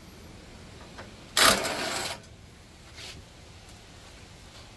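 A 10 mm bolt on a snowblower's engine shroud being spun out with a nut driver: one loud burst of noise a little under a second long, about a second and a half in, with a faint click before it.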